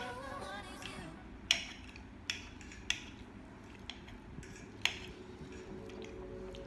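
Forks clicking and scraping against plates during a meal, with four or five sharp clicks spread through, the loudest about one and a half seconds in.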